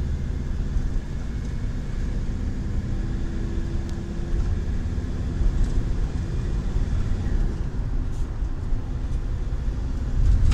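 Steady low rumble of engine and tyre noise inside the cab of a motorhome driving along a road.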